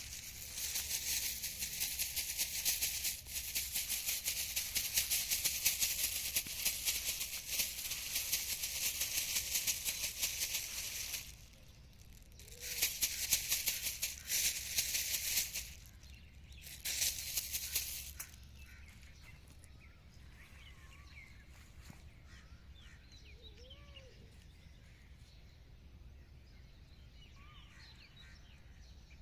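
Shrill, high-pitched insect buzzing in three bouts: a long one of about eleven seconds, then two shorter ones, each cutting off suddenly. After that, faint bird chirps.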